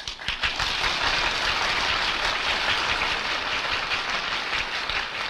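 Audience applauding: dense, steady clapping that starts abruptly and begins to tail off near the end.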